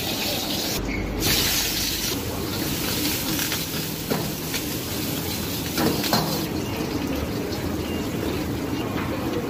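Steady hiss of food and oil sizzling in a hot wok over a gas burner, with a metal ladle scraping and clinking against the wok a few times around the middle.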